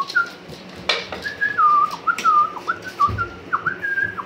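Person whistling a run of short high notes to call a dog, each note held briefly and hooking down at its end. A dull thump about three seconds in.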